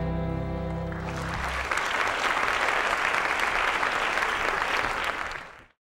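A held closing chord of the song dies away about a second in, and audience applause takes over, cut off abruptly near the end.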